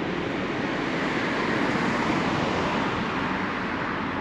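Outdoor traffic noise: a steady roar that swells about a second in, peaks near the middle and eases off, as a vehicle passes.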